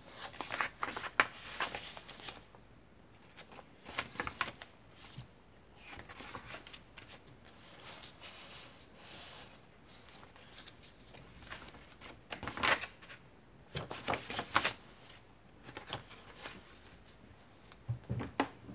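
Vintage paper pages of a handmade layered junk journal being turned and handled, with tucked-in cards and tags, rustling and crinkling in bursts with short pauses between. There is a soft low bump near the end.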